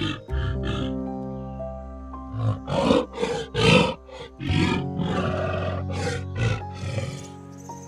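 A wild animal giving a series of loud, rough roaring calls in separate bursts, over steady background music.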